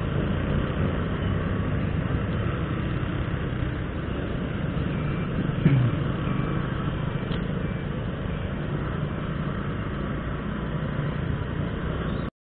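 Small motorcycle engine running steadily under way, mixed with road and traffic noise. About six seconds in there is a brief louder sound with a falling pitch, and the sound cuts off suddenly near the end.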